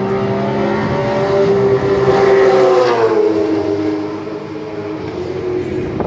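Supercars V8 race car running at speed as it passes by: a steady high engine note that grows loudest about two and a half seconds in, then drops in pitch and fades as the car goes away.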